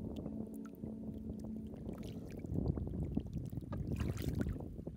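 Bare hands digging and scooping wet mud, squelching and sloshing with many small wet crackles, busiest around the middle.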